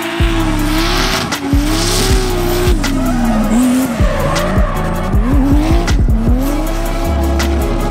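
A BMW E36 drift car's engine revving up and down repeatedly while sliding sideways, its rear tyres squealing and skidding.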